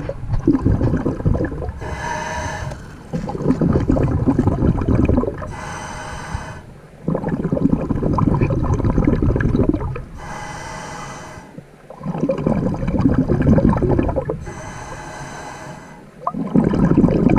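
A scuba diver breathing underwater through a regulator: a short hiss of drawn air about every four seconds, each followed by a longer stretch of rumbling exhaled bubbles.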